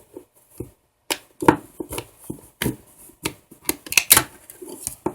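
Plastic back cover of a Highscreen Boost 2 SE smartphone being opened by hand: a series of irregular sharp plastic clicks and snaps.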